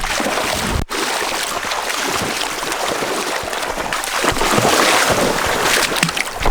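Steady rushing noise of wind and water at the shoreline.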